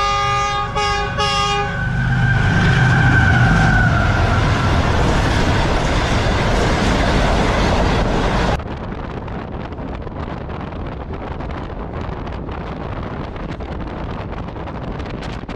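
Train's multi-tone horn sounding in short blasts, then the loud rush of the train running at speed. A little past halfway the sound drops suddenly to a quieter, steady running noise.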